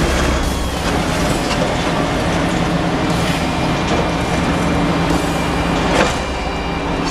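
Liebherr demolition excavator running steadily under hydraulic load as its crusher jaws bite into a reinforced concrete slab, concrete crunching and debris falling. A single sharp crack stands out about six seconds in.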